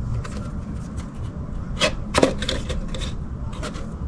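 Handling sounds from a boxed motorcycle battery being picked up and turned over: a few sharp knocks and rubbing about two seconds in, over a steady low rumble.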